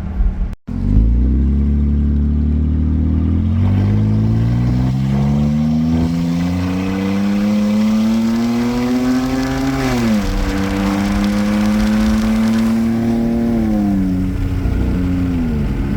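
Jeep Grand Cherokee engine running with its exhaust removed, accelerating with a steadily rising pitch. About ten seconds in the pitch drops sharply as it shifts up. It then holds steady, and eases off twice near the end.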